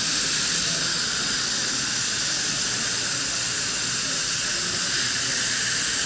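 Dental high-volume suction hissing steadily as it draws off the laser plume at the gum.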